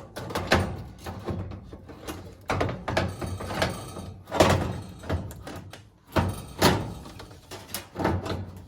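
Stainless steel oven door of an Amana AGR6303MMS gas range being fitted back onto its hinges: a series of metal knocks and clunks, the loudest about halfway through.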